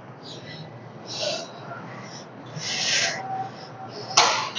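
Heavy, hissing exhales close to a clip-on mic during a set of heavy barbell deadlifts, in two or three breaths. A sharp knock comes near the end.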